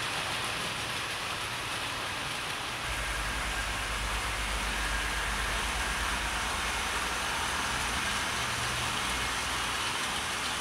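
00 gauge model trains running on their track: a steady hiss of motors and wheels. About three seconds in, a low rumble joins it as a locomotive and its coaches pass close by.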